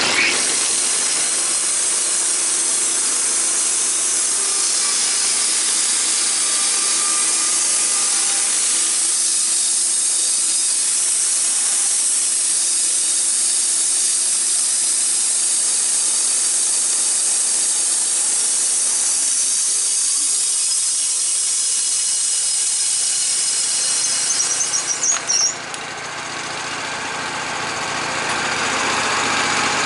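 Engine-driven sawmill cutting through a log, a steady high-pitched sawing noise over the engine. About 25 seconds in the sound briefly drops and sputters, then builds back up.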